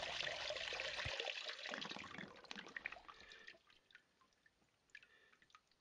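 Water trickling through a small drop riffle sluice, over its wooden riffle bars and gravel, dying away over the first three seconds or so as the flow stops. After that come a few scattered faint drips.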